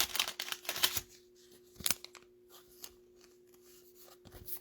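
Trading cards being handled and sorted: dry rustling and small clicks of card stock, thickest in the first second, with a sharp click about two seconds in and more handling near the end. A faint steady hum runs underneath.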